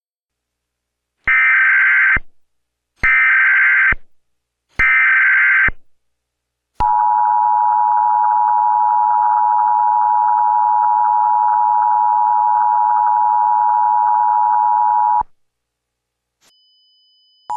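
Emergency Alert System alert: three short screeching data bursts of the SAME header, then the EAS attention signal, a steady dual-tone beep held for about eight seconds that cuts off sharply.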